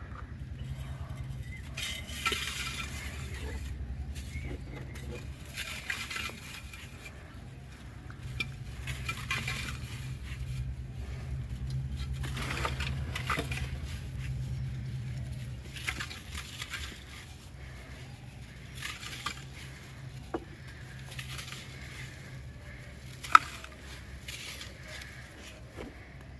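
Dry black sand crumbling and crunching under fingers in a clay pot, in gritty bursts of crackling, with small clinks against the pot. A sharp click a few seconds from the end is the loudest sound. A low hum runs under the first half.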